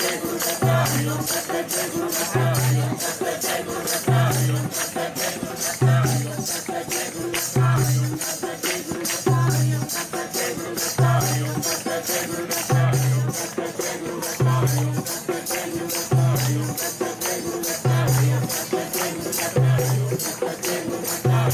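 Devotional music with a low bass note pulsing about every 1.7 seconds under fast, even jingling percussion like a tambourine or shaker, and a sustained melody line.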